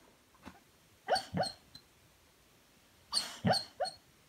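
Golden retriever asleep, giving short soft muffled woofs in its sleep: a pair about a second in and three more about two seconds later.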